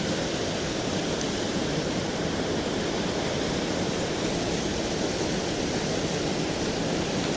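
A river in flood rushing past: a steady, even rush of fast water.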